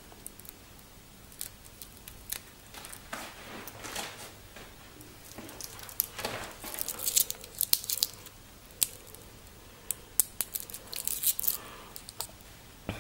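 Clear plastic wrapping crinkling and tearing as it is pulled off a wristwatch, with scattered sharp handling clicks, busiest in two spells past the middle and near the end.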